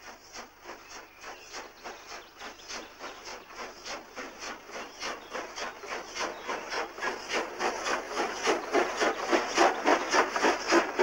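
Exhaust beats of an SNCB type 29 steam locomotive working a goods train up a steep incline: a quick, even rhythm of chuffs that grows steadily louder as it approaches.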